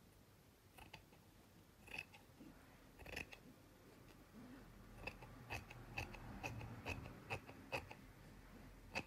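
Scissors snipping through a zippered mesh bag, a series of faint, crisp cuts. A few scattered snips come first, then a steady run of about two snips a second from the middle on, with one last snip near the end.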